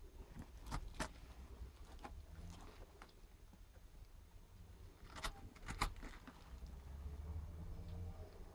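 Scissors working at the packing tape on a cardboard parcel box: faint crackling with a few sharp clicks, about a second in and twice more a little past the middle.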